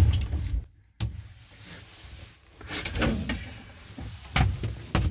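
Scraping, rustling and a few dull knocks of someone squeezing through a narrow gap beside a wooden cabinet. The louder knocks come about three seconds in and again near the end.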